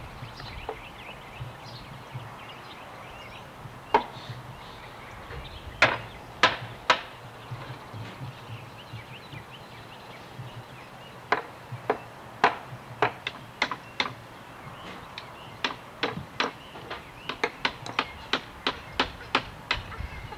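Small claw hammers striking wood scraps and nails on a wooden deck: sharp, irregular knocks, a few scattered at first, then a quicker run of blows through the second half.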